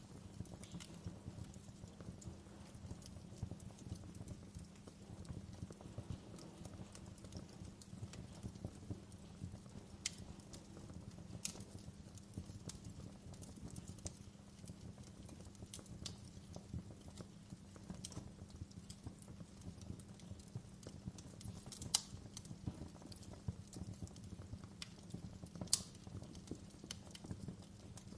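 Fire crackling in a fireplace: a steady low rumble of the flames under a constant patter of small crackles, with a few sharper pops standing out, the loudest two in the second half.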